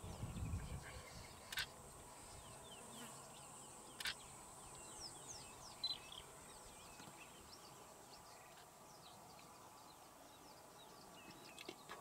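Faint outdoor wildlife ambience: many short, high bird chirps from small birds, over a steady insect drone. A brief low rumble comes at the very start, and a few sharp clicks are scattered through.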